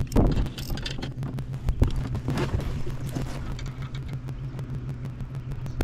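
Scattered knocks and bumps of a person climbing out of a kayak onto a wooden dock, over a steady low hum.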